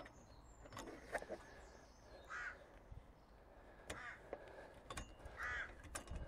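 A crow caws twice, a few seconds apart, over faint small clicks of the metal breakaway cable and its clip being handled at a caravan tow hitch.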